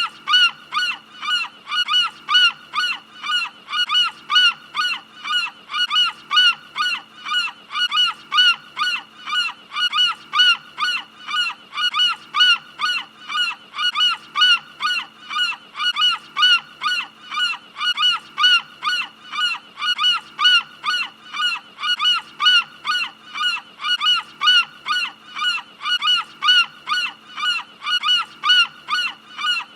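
Seagull calling in an unbroken series of short, high cries, about three a second, repeating evenly, over a faint steady low hum.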